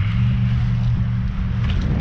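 A steady low engine hum, with wind rumbling on the microphone.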